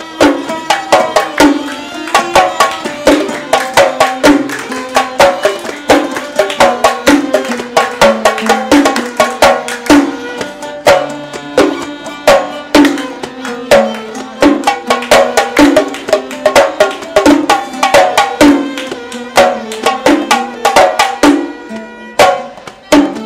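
Instrumental passage of a Gulf sawt song: oud and violin playing the melody over a steady, fast rhythm of mirwas hand drums.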